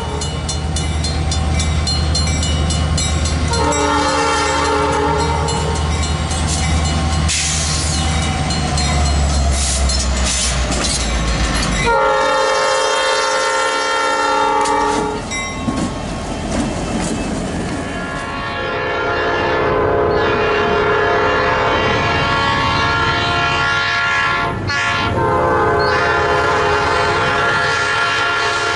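Nathan Airchime P5 five-chime train horn sounding a series of long blasts of one steady chord, with wheels clacking on the rails. A heavy low engine rumble underlies the first part and drops away abruptly about twelve seconds in.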